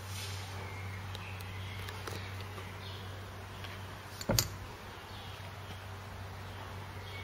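A single loud thump about four seconds in, a young gorilla knocking against the glass pane of its enclosure. Under it runs a steady low hum with faint high chirps.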